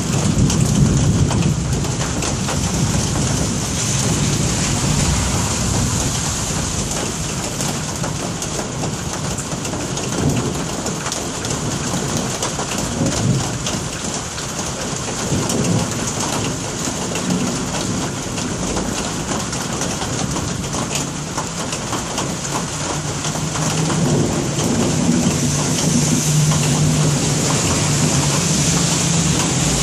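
Steady heavy rain falling, with low rumbles of thunder, strongest a second or two in.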